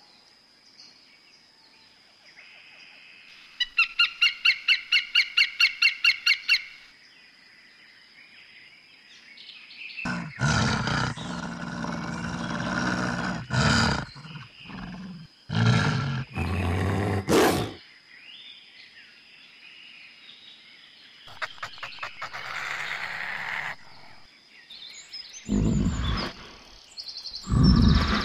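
A string of wild animal calls: a rapid run of high chirps, about five or six a second for some three seconds, then loud growls and roars in several separate bouts.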